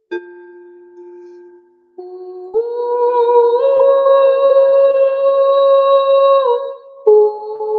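Wordless vocal toning: long held sung notes in a woman's range. The note steps up in pitch partway through, breaks off briefly near the end, and a new note starts at once.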